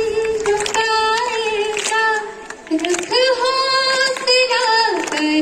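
A high female voice singing, holding long notes, with a short break about two and a half seconds in.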